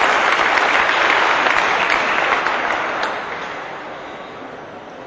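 Audience applauding, the clapping dying away from about three seconds in.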